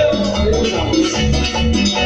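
Live Latin tropical dance band playing, amplified, with a steady bass beat and percussion.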